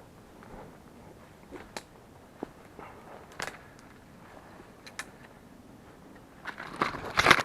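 Footsteps on a forest trail: scattered snaps and crackles of twigs and dry leaves underfoot, then a louder stretch of crunching and rustling near the end.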